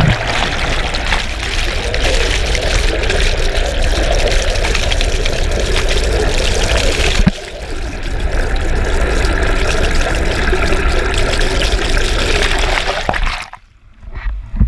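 Churning prop wash behind a motorboat heard underwater: a dense rush of water and bubbles over a steady low hum from the boat's propeller and motor, muffled through a waterproof camera housing. About a second before the end the rush cuts off abruptly as the microphone breaks the surface, followed by a few splashes.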